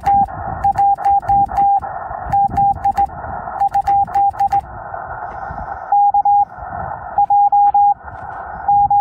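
Morse code (CW) on a Yaesu FT-891 HF transceiver: a single steady beep keyed in short dits and longer dahs over a band of receiver hiss, with sharp clicks of a straight key through the first half. After a pause a little before halfway, the beeps return in three short groups.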